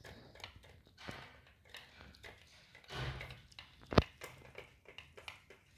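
Two kittens eating cooked rice from a steel plate: irregular small clicks and smacks of chewing and of mouths against the metal plate, with one sharp tap about four seconds in.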